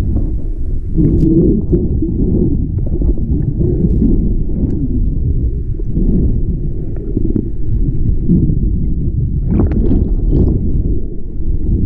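Muffled low rumble of moving water heard through a submerged action camera's waterproof housing, with a few faint clicks about a second in and again near the end.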